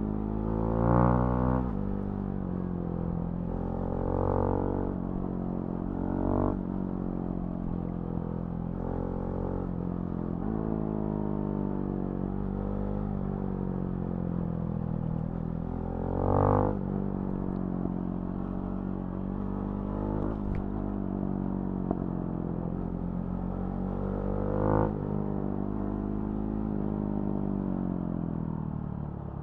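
Husqvarna Svartpilen 701's single-cylinder engine through a Remus NXT aftermarket exhaust, running on the road with its pitch slowly falling and rising. There are brief louder revs about a second in, near four and six and a half seconds, around sixteen seconds and near twenty-five seconds.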